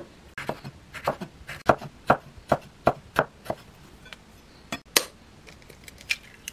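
Santoku knife slicing a yellow bell pepper into thin strips on a wooden cutting board, the blade knocking the board about three times a second. The strokes stop about halfway through, leaving a couple of sharper single knocks near the end.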